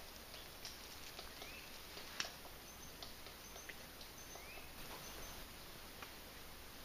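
Forest birds calling over a faint steady background hiss. A short rising chirp comes twice, and a run of four brief high whistles falls in the middle. A few sharp ticks are scattered through it, the loudest a little past two seconds in.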